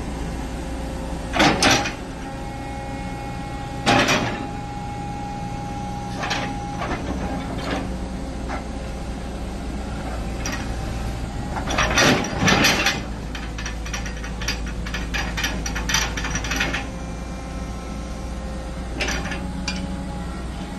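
Hitachi ZX120-3 hydraulic excavator's diesel engine running steadily with a steady hydraulic whine, broken by loud metallic clanks a little over a second in, at about four seconds and around twelve seconds as the boom and bucket work, then a quick run of rattling metal clicks for several seconds.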